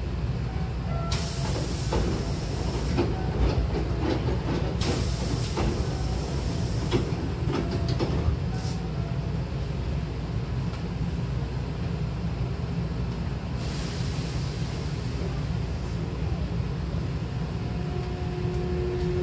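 Hankyu 8300-series commuter train standing at a platform with a steady low rumble from its equipment, while its air-operated doors slide shut amid several bursts of compressed-air hiss. A steady whine from the traction equipment sets in near the end as the train gets ready to move off.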